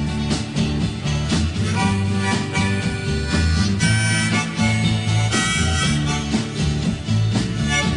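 Instrumental break of a 1960s folk-rock song: a harmonica playing a melody over the band's steady accompaniment, with no singing.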